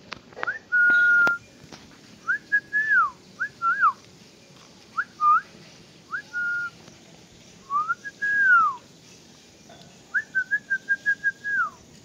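A series of clear whistles: a long level note, several short notes that slide up and then down, and a quick trill of short notes near the end that drops away at its close.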